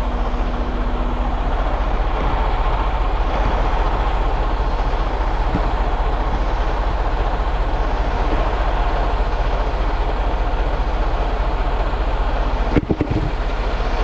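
Semi-truck tractor's diesel engine idling steadily. A brief knock sounds near the end.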